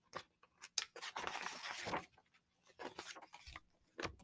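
Paperback picture book being opened and its pages turned: paper rustling and handling clicks, with a longer rustle about a second in.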